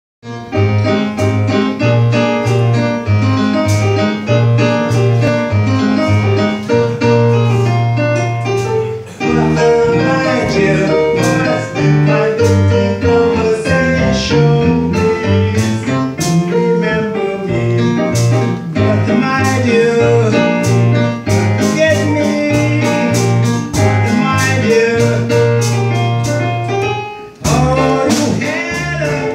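A live band plays: drum kit, electric bass line, electric guitar and keyboards, with the sound of the room. The music drops briefly about nine seconds in and again near the end before carrying on.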